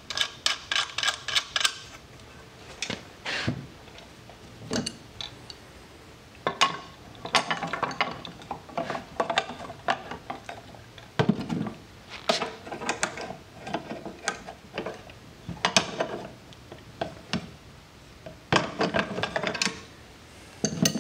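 Wrenches working AN fittings and caps on a metal fuel cell fill plate: metal clicks and clinks, with several quick runs of rapid clicks.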